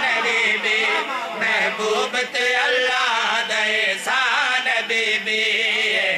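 Men chanting a devotional qasida refrain in a melodic, sing-song voice through a loud public-address system, with the lead reciter's voice joined by others.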